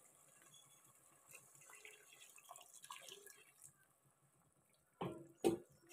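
A little water poured into a pot of beef curry on the stove, with two sharp knocks near the end.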